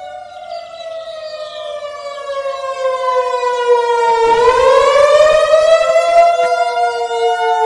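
Federal Signal 2001-DC outdoor warning siren sounding the attack signal, a wavering wail. Its two-note chord slides down in pitch for about four seconds, then rises and falls again, growing louder through the first half.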